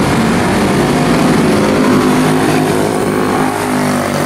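Quarter midget race cars' small single-cylinder four-stroke engines running flat out as the cars go past. Several engines are heard at once, their pitches shifting.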